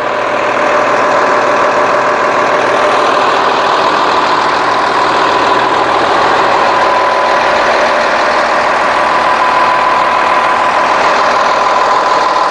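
Cummins ISC diesel engine of a Blue Bird bus idling steadily, with a constant high whine over the engine noise.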